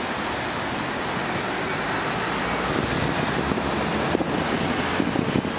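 Stormwater pouring out of a concrete outfall into a river after rain, a steady rush of water. From about halfway in, wind buffets the microphone.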